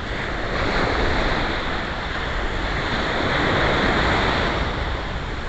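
Ocean surf washing up the beach: a steady rush of breaking waves that swells a little in the middle.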